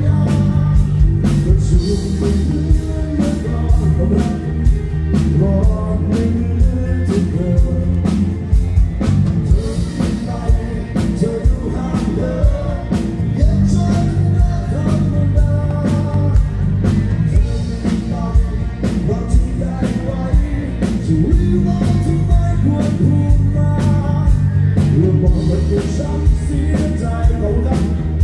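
Live Thai rock band played loud through a PA system, a male singer singing over a steady drum beat.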